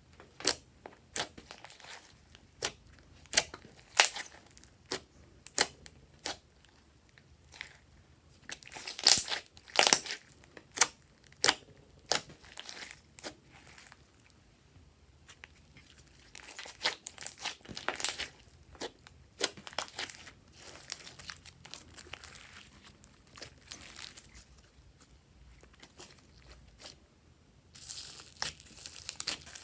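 Glossy slime being squeezed, stretched and folded by hand: irregular sticky clicks and crackling pops, loudest in a cluster about a third of the way in, with a denser run of crackling near the end.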